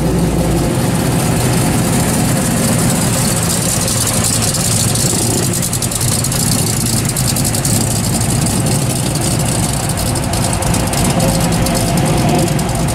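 Modified split-bumper Chevrolet Camaro driving slowly past, its engine running steadily through a dual exhaust, heaviest in the low end in the first second or so.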